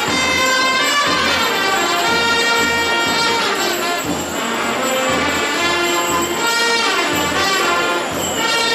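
Band music with loud, held brass-like notes over a steady low beat.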